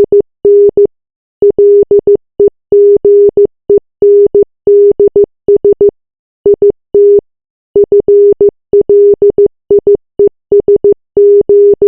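Morse code sent as a single steady beep tone keyed on and off in short dots and longer dashes, with brief pauses between letters.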